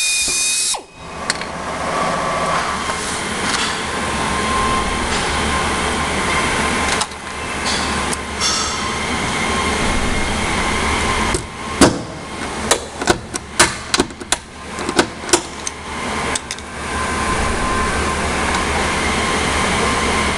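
A power drill whines briefly and stops within the first second, drilling a hole in the trike's body panel. About twelve seconds in comes a run of a dozen or so sharp clicks over some five seconds as a hand snap-setting tool works at the hole, setting the snap for the fender bra. A steady shop hum runs underneath.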